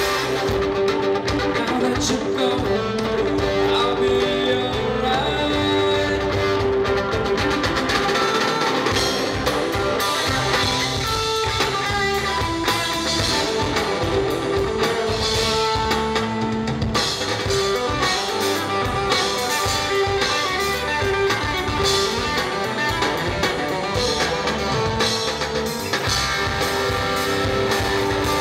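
Live band playing an instrumental passage: strummed acoustic guitar, electric bass and a drum kit, with a steady beat throughout.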